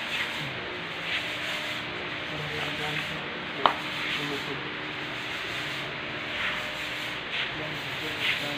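Steady rough hiss of a handheld disinfectant fogger releasing thick smoke, with a faint low hum underneath and a single sharp click about three and a half seconds in.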